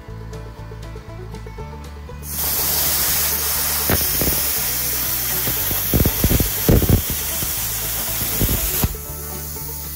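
BestArc BTC500DP plasma cutter firing and cutting into an aluminum garden trowel: the air-plasma jet starts about two seconds in as a loud steady hiss, with sharp crackling pops as it bites through the metal. It cuts off suddenly near the end.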